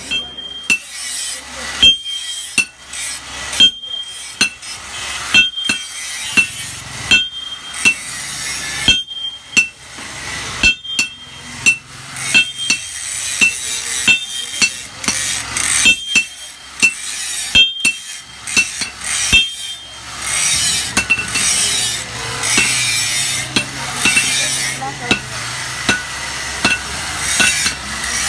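Hand hammer striking a red-hot steel cleaver blade on an anvil, one sharp ringing blow about every second while the blade is drawn out. About two-thirds of the way in, the blows come amid a rougher, steady hiss.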